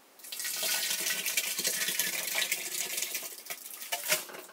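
Crushed grapes and juice poured from a plastic bucket into an aluminium milk can, splashing and gurgling, with a couple of knocks from the bucket near the end.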